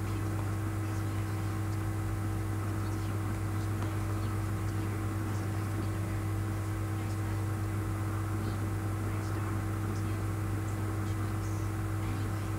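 Steady low electrical or fan hum with a faint hiss, unchanging throughout.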